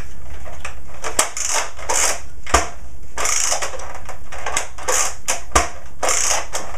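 Nerf Zombie Strike Slingfire blaster's plastic priming action being worked back and forth over and over: a series of raspy plastic slides, with three sharp clicks as the mechanism catches or releases.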